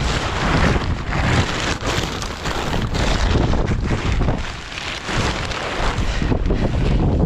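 Strong gusty wind buffeting the microphone, a continuous rushing noise with a heavy low rumble that swells and dips with the gusts.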